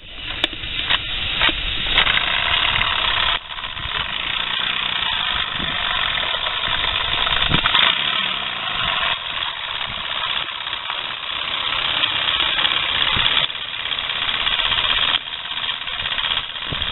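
Small model steam engine running on steam piped from a wood-fired boiler: a rapid, steady chuffing mixed with hissing steam, dipping briefly a couple of times.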